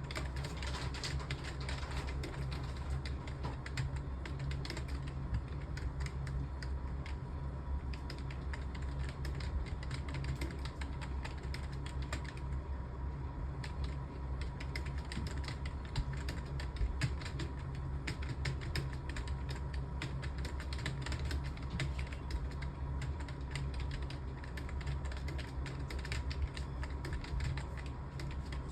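Fast, continuous typing on a computer keyboard, keystrokes clicking in quick succession with a short lull about halfway, over a steady low electrical hum.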